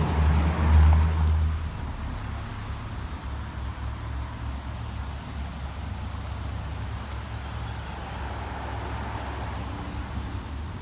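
Road traffic rumbling steadily, louder for the first couple of seconds and then evening out.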